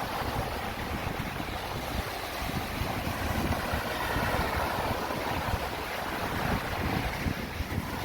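Sea waves washing in steadily, with wind gusting across the microphone in low rumbling buffets.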